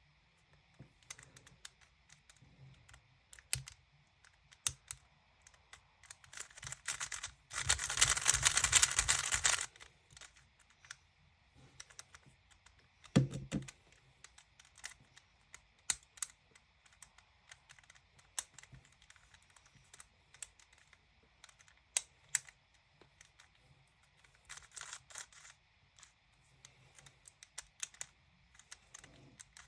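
GAN maglev 3x3 speed cube being turned by hand, its plastic layers clicking in quick irregular runs. A louder, dense flurry of about two seconds comes a quarter of the way in and a shorter one near the end, with a single knock about halfway through.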